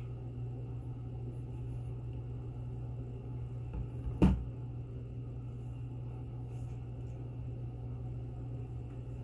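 Steady low room hum, with one sharp knock about four seconds in, the loudest sound, as if something were bumped or handled near the microphone.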